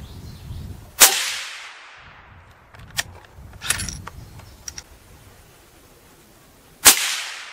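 Howa 1500 bolt-action rifle in .350 Legend with a Banish 46 suppressor firing two suppressed shots of supersonic 170-grain ammunition, about six seconds apart. Each sharp report trails off over about a second. Between the shots the bolt is worked, giving a few metallic clicks.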